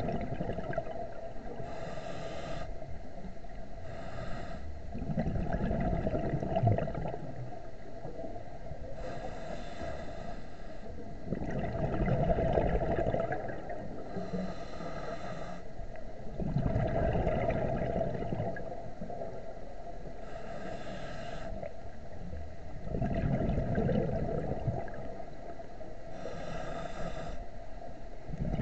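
Scuba diver breathing through a regulator: a hiss on each inhale alternating with a low bubbling burst of exhaled bubbles, about one breath every five to six seconds.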